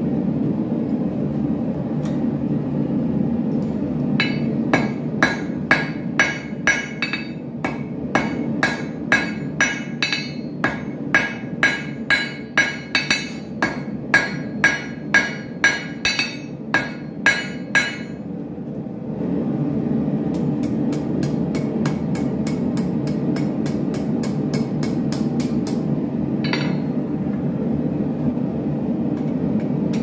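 Hand hammer striking a red-hot horseshoe nail on an anvil, about two ringing blows a second for some fourteen seconds, then stopping. A steady low rumble runs underneath.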